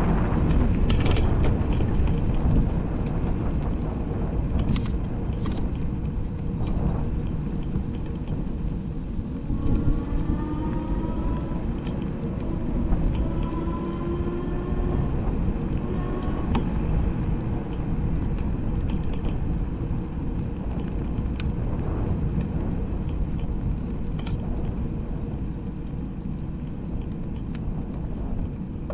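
Steady low rumble of wind and rolling noise from travelling along a paved trail, with a few faint rising tones between about ten and seventeen seconds in.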